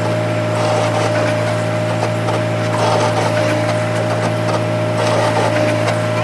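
A workshop machine running steadily: a low hum with a constant higher whine over a rough, scraping noise.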